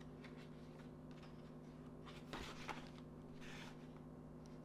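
A page of a hardcover picture book being turned by hand: faint paper rustling, mostly a little past the middle, over a steady low hum.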